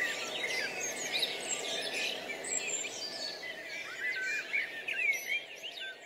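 A chorus of many birds chirping and calling at once, short overlapping rising and falling notes, over a steady background hiss, growing fainter near the end.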